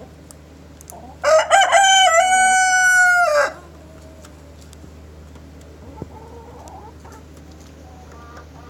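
A rooster crows once, about a second in: a few short broken notes, then one long held note, the whole crow lasting about two seconds.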